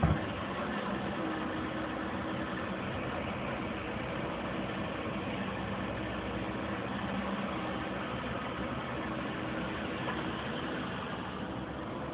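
Komatsu PC170LC-10 excavator's diesel engine running steadily while the machine digs in a dirt pile. A single sharp knock comes right at the start.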